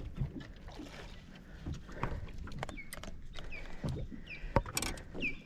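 Scattered light knocks and clicks from fishing gear being handled in a kayak, as a cast is made with a spinning rod. In the second half, a run of about five short, high chirps repeats roughly every half second.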